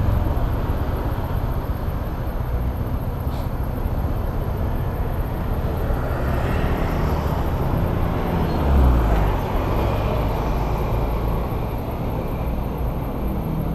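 A motorcycle running in city traffic: steady engine and road rumble, with a brief louder swell about nine seconds in.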